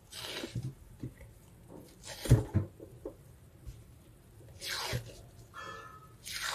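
Wet squelches and dull knocks from raw cow tripe being handled and its membrane peeled away in a stainless steel sink. They come in scattered short bursts, the loudest about two seconds in.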